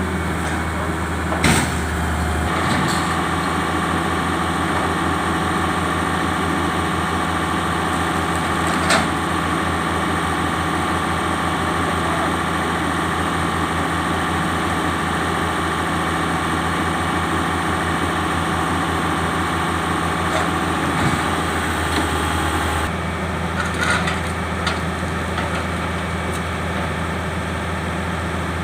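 Excavator's diesel engine running steadily. A higher, steady whining tone joins about two seconds in and drops away near the end, and a few sharp metal knocks sound over it.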